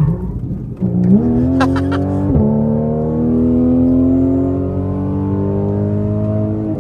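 Car engine accelerating, its pitch jumping up about a second in and then climbing steadily, with a brief break about two seconds in, like a gear change.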